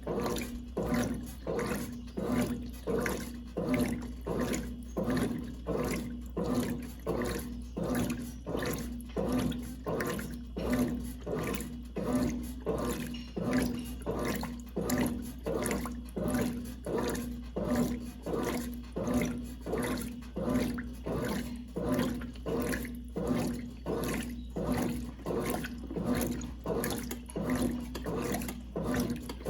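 Brastemp Clean 5 kg washing machine agitating a load in water: a steady rhythm of sloshing strokes, about three every two seconds, over a low motor hum.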